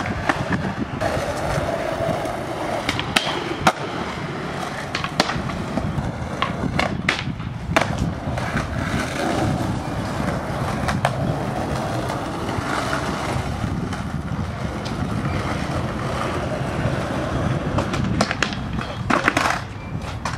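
Skateboard wheels rolling over pavement, a continuous rumble as riders push along, with several sharp clacks scattered through it and a quick cluster of them near the end.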